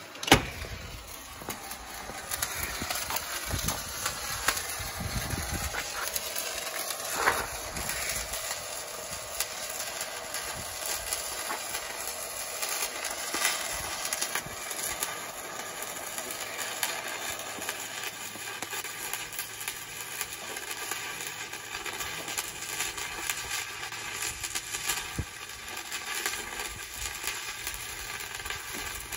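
Arc welding on a cracked steel wheel loader bucket: a steady, uneven crackle and hiss from the arc. There is a single sharp knock near the start.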